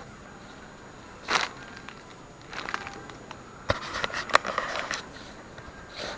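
Handling noise: short bursts of crinkling and rustling with sharp clicks, three times, the longest around the middle.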